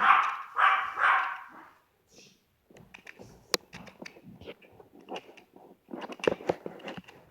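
A dog barking about four times in the first two seconds, then faint clicks and handling noises.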